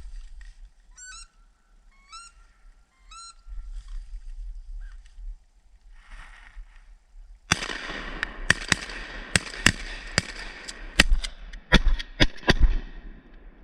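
Three short rising squealing duck calls, then a volley of about a dozen shotgun blasts from several hunters firing close together at ducks over the swamp.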